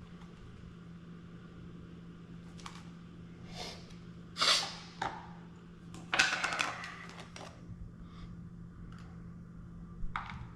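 Object-handling noises: a scattered series of clicks and short rustling or scraping bursts, the loudest about four and a half and six seconds in, over a steady low hum.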